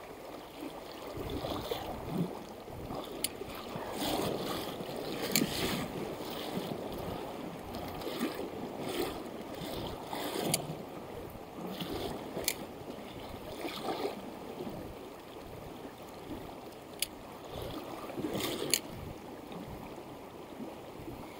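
Fast river current rushing over a stony bed as a steady wash of water noise, with scattered sharp clicks at irregular intervals.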